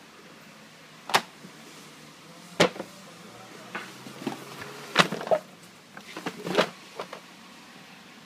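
Front rubber floor mats for a BMW X6 (E71) being handled and flipped over on a table: a few sharp slaps and knocks, four louder ones spread out every second or two, with softer taps and scuffles between, over a faint steady hiss.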